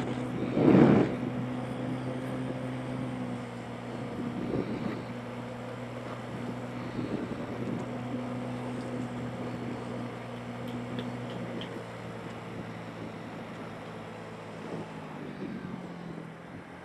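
Motorbike engine running steadily under way, with wind noise on the microphone. A brief loud burst comes about a second in, and the engine note drops near the end as the bike slows.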